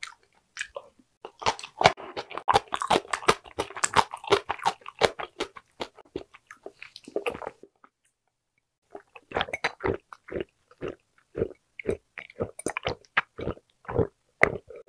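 Close-miked chewing of crunchy kimchi, a dense run of wet crunches and clicks. After a short pause, a series of loud gulps from swallowing water, about two a second.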